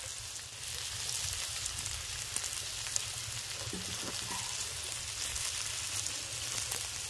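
Pork sizzling on a hot gobdol stone griddle plate over a wood fire: a steady crackling hiss that grows a little louder about half a second in, with an occasional small pop.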